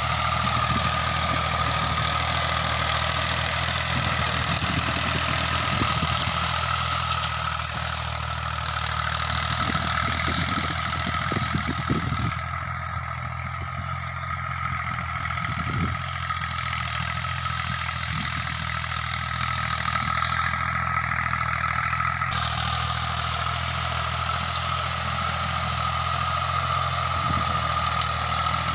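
Massey Ferguson 240 tractor's diesel engine running steadily under load as it pulls a tillage implement through the field, with a steady whine over the engine note. It grows fainter midway as the tractor moves off, then louder again as it comes back.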